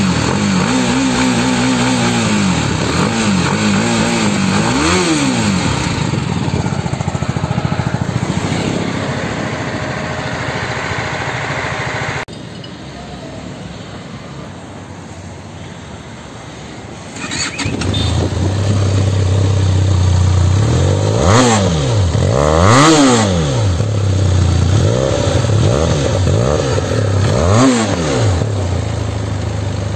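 A BMW G 310 GS single-cylinder motorcycle engine is revved in several quick blips, then runs more steadily. After a cut, a Benelli TRK 502 parallel-twin motorcycle engine starts, settles into a steady idle and is revved in a series of short blips.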